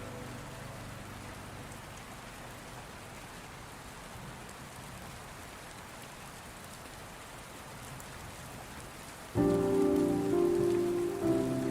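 Steady rain falling, an even hiss. About nine seconds in, loud held musical tones come in suddenly over the rain and shift once near the end.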